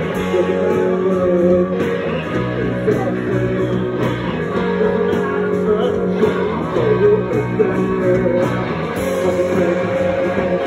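Live rock band playing: electric guitars and drums keeping a steady beat, with a male vocalist singing into a handheld microphone.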